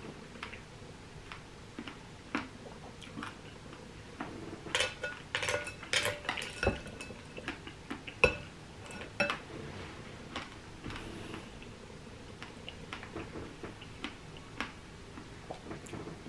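Spoon clinking and tapping against a bowl of berries, ice and coconut water, in scattered clicks that come thickest in a cluster about four to ten seconds in.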